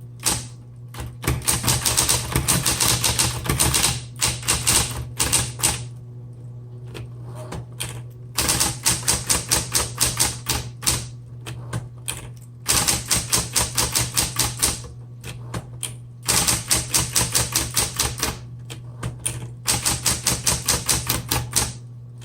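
Smith Corona Electra 120 electric typewriter being typed on: fast runs of sharp type-bar strikes in several bursts with short pauses between them, over the steady hum of its running motor.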